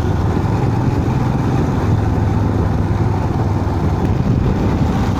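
Royal Enfield Himalayan motorcycle's single-cylinder engine running steadily while riding, with an even rush of road and wind noise over it.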